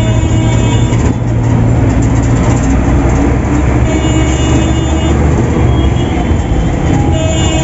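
Steady running noise inside a Volvo 8400 city bus on the move: a low diesel engine drone and road rumble, with a few steady high tones above it.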